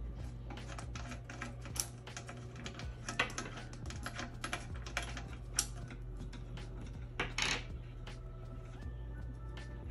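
Small metal fittings being unscrewed from a tumbler heat press and set down on a stone counter: a run of light metallic clicks and taps, with a few sharper clinks.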